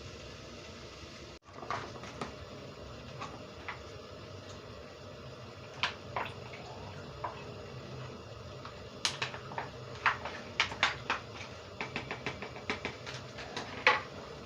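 Light clicks and taps from small objects being handled, sparse at first and coming much more often in the second half, over a steady background hiss.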